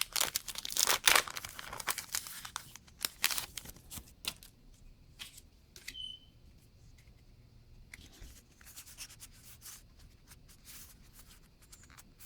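Foil Pokémon trading-card booster pack wrapper being torn open and crinkled. There is dense crackling for the first two or three seconds, then scattered soft crinkles and clicks as the cards are handled.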